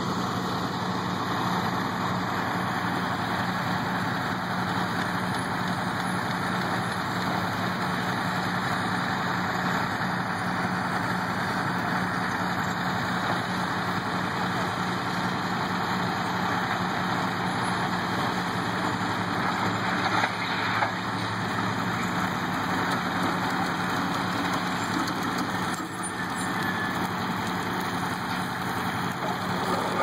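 Crawler crane's diesel engine running steadily at constant speed: a low hum under a broad mechanical noise, with a brief louder moment about twenty seconds in.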